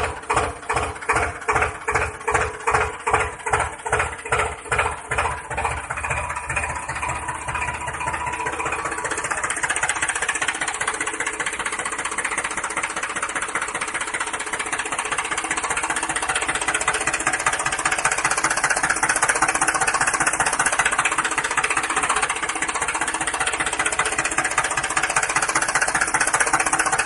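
Tractor engine sound: slow, evenly spaced chugs, about two to three a second, that quicken over the first several seconds and merge into a steady rattling run.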